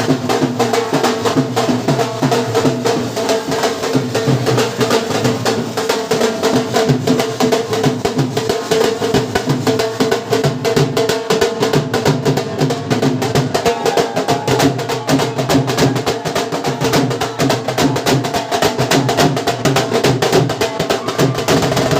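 Background music with fast, steady percussion over held notes.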